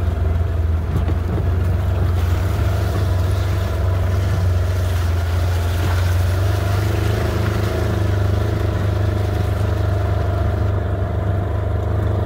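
A motor vehicle's engine running steadily under way, with a heavy low rumble and a steady droning hum.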